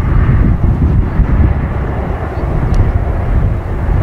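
Four-engine Boeing 747-400 jetliner landing: a loud, steady, low jet rumble with a noisy hiss above it.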